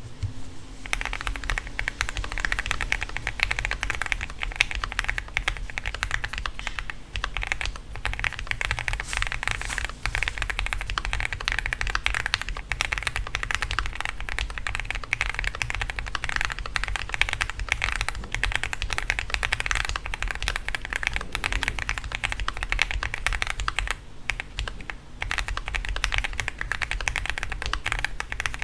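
Continuous fast typing on a Zoom65 mechanical keyboard with lubed Gateron Yellow Cap V2 Milky linear switches, a PC plate, Poron foams and Cherry profile keycaps: a dense run of keystroke clacks, with a short lull about 24 seconds in.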